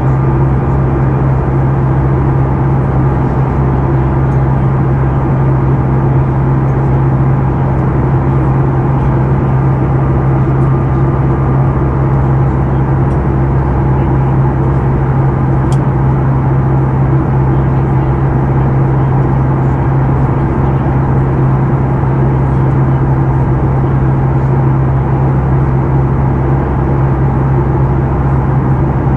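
Steady cabin drone of a Boeing 737 MAX 8 in flight, heard from a seat beside the wing: CFM LEAP-1B turbofan engines and rushing airflow, with a strong low hum under an even roar.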